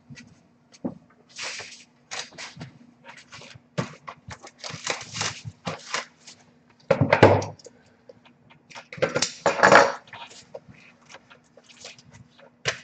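Trading-card packs and cards being handled: a run of quick rustles and clicks, with two louder scuffs about seven and nine and a half seconds in, over a faint steady hum.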